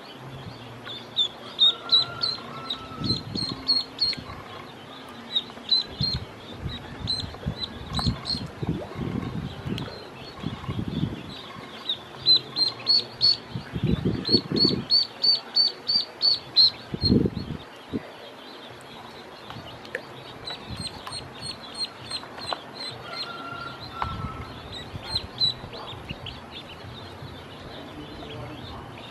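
Ducklings peeping in short, high chirps while they feed, with bursts of soft tapping and dabbling as their bills work the feed on the plastic basin and the water in the bowl.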